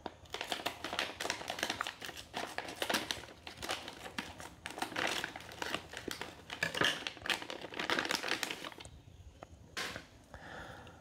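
Plastic packaging bag crinkling as it is cut open with scissors and a braided network cable is pulled out, the crackle going on and off and stopping about nine seconds in.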